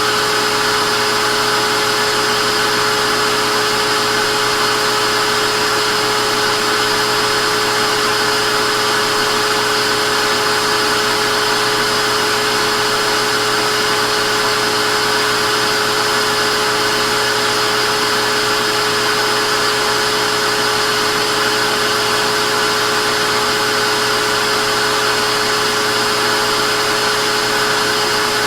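Vacuum cleaner motor running steadily, a constant whirring hiss with a fixed high whine and no change in pitch or level.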